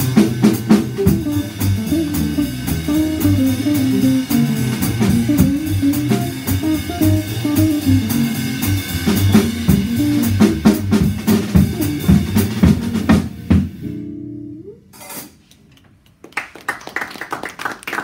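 Jazz trio of upright double bass, archtop electric guitar and drum kit with cymbals playing bebop. About fourteen seconds in the tune ends on a short held chord, there is a moment of quiet, and then a few listeners clap.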